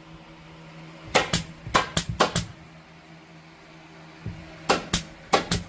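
Pneumatic upholstery staple gun firing staples through vinyl headliner: about ten sharp shots in two quick bursts, one starting about a second in and another near the end, over a steady low hum.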